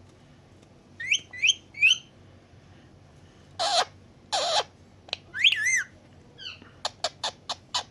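Indian ringneck parrot calling: three short rising chirps about a second in, two loud harsh squawks near the middle, a warbling whistle, then a quick run of sharp clicks near the end.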